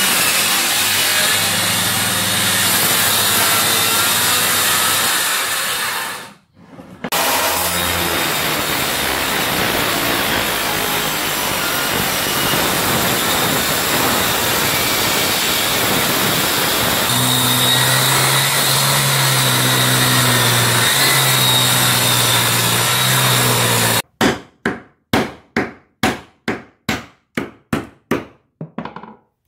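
Electric circular saw running as it cuts through termite-eaten wooden floorboards, stopping briefly about six seconds in, then running on. In the last five seconds it gives way to about a dozen sharp knocks, roughly two a second, growing fainter.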